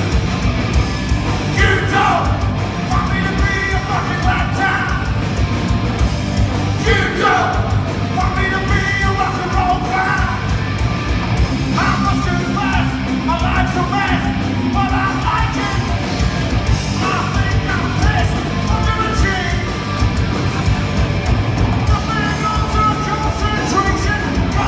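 Live punk rock band playing a song: electric guitars, bass and drums, with a singer on vocals over them.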